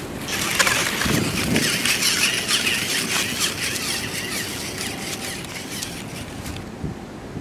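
Dense chattering of many birds at once, a mass of overlapping high chirps and squeals. It starts suddenly and cuts off abruptly near the end.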